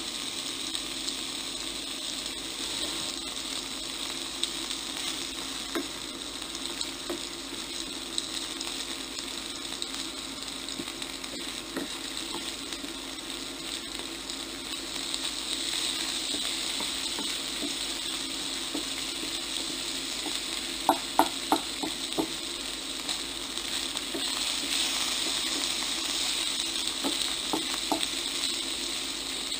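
Cubed kebabs and sliced red onion sizzling in oil in a nonstick frying pan, stirred with a wooden spatula that clicks and scrapes against the pan, with a quick run of sharp taps about three-quarters of the way through.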